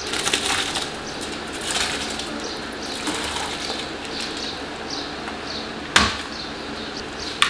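Soaked rice poured from a metal colander into a pot of boiling stock: a steady hiss and patter of grains and water falling in. About six seconds in, one sharp knock on the colander as the last grains are shaken out.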